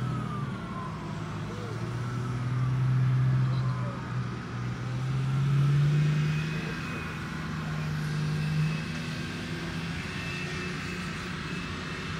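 Engines of military vehicles driving across a grass field: a steady low drone that swells louder twice, about three and six seconds in, its pitch rising a little.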